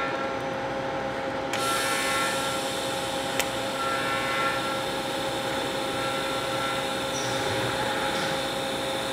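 TIG welding arc on thin-wall titanium tubing, run without pulse at about 60 amps. It starts suddenly about a second and a half in and carries on as a steady hiss, with one sharp click a couple of seconds later, over a steady hum of shop machinery.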